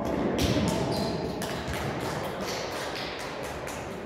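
Indoor volleyball play: several sharp hits of the ball and players' feet moving on the court, echoing in a large sports hall.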